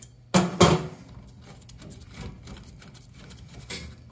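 Two sharp clatters about half a second in, then quieter clicks and handling noises, as an adjustable wrench works the gas line fitting and flexible connector off an old gas furnace.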